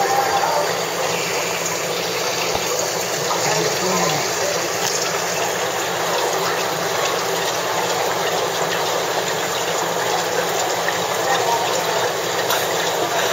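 Aquarium water flow, heard as a steady rushing hiss.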